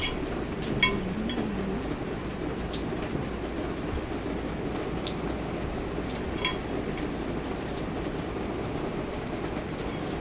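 Steady low rushing noise with a few sharp clicks and taps, the loudest about a second in and again about six and a half seconds in.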